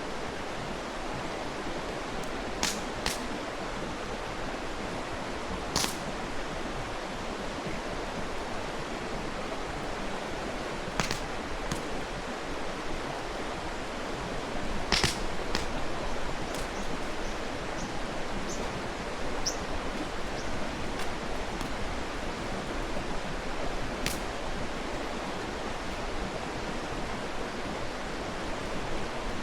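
Mountain stream rushing steadily, with a wood campfire giving off occasional sharp pops and crackles every few seconds.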